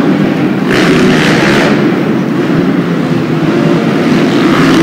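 Motocross bikes racing around an indoor arena track, their engines revving loudly. A rush of hiss comes in about a second in and lasts about a second.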